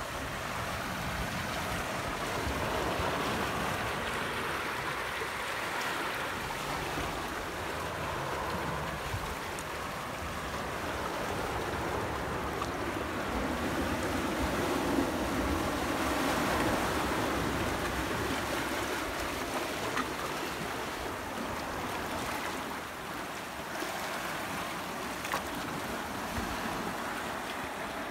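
Small sea waves washing in over barnacle-covered rocks and draining back between boulders, a continuous rushing and swirling of water that swells and eases, with a few light taps.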